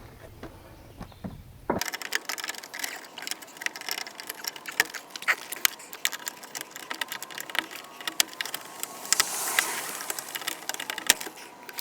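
Small metal tools and parts being handled and rummaged through: rapid, irregular clinking and rattling that starts about two seconds in and keeps going.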